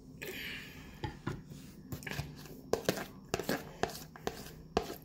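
A brief hiss at the start, then a thin plastic deli container being picked up and handled, its sides crinkling and clicking in a run of sharp taps.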